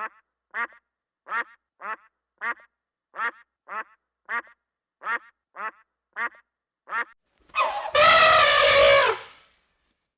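A duck quacking steadily, about a dozen short quacks at an even pace. Near the end a much louder, drawn-out call of about a second and a half cuts in, dropping slightly in pitch.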